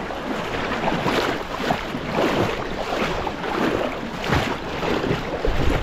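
Shallow seawater sloshing and splashing in uneven swells as a person wades in step by step, with wind buffeting the microphone, strongest near the end.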